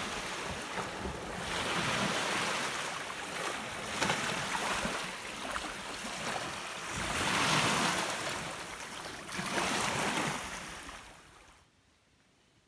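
Small Lake Superior waves washing up onto a sandy beach, surging and falling back every two to three seconds, with some wind rumble on the microphone. The surf cuts off suddenly near the end.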